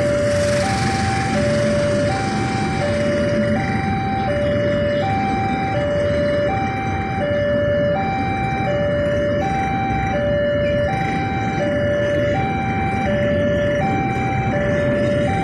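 Railway level-crossing warning alarm sounding a repeating two-tone electronic chime, a low and a high note alternating about every three-quarters of a second. Under it runs the steady noise of a passenger train passing, along with idling motorcycles.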